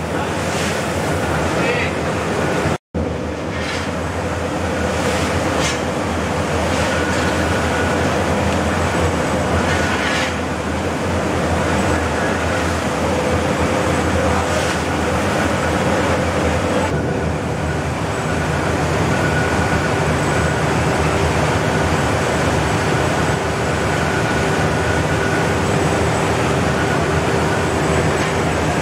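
Rice mill machinery running: a steady drone with several held tones over constant noise. It cuts out for a moment about three seconds in.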